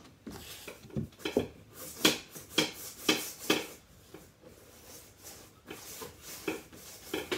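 Hand rubbing and pressing along a freshly glued edging strip (lipping) on a kitchen worktop edge, to keep it stuck down with no air gaps. The strokes are short and come about one a second, with a quieter stretch in the middle and a few more near the end.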